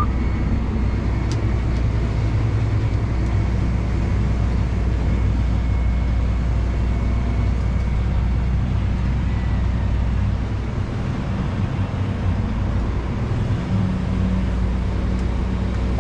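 Farm tractor engine running steadily under load, heard from inside its cab while it pulls a grain cart through the corn field. The drone dips slightly about ten seconds in, then its note changes and it picks up again.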